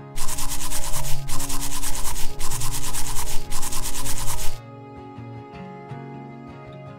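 Toothbrush scrubbing sound effect: rapid back-and-forth brushing strokes that stop abruptly about four and a half seconds in, over soft background guitar music.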